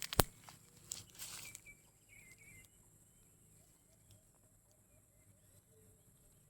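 A sharp knock just after the start and a few brief scuffing noises over the next second and a half, then faint outdoor background with scattered small sounds.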